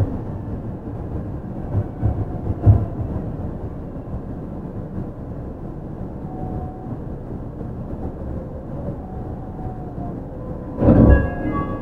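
Yui Rail 1000 series monorail running, heard from inside the car: a steady low rumble with small irregular bumps and a faint whine that comes and goes from its Hitachi IGBT VVVF drive. Near the end comes a louder burst of rumble with several steady tones.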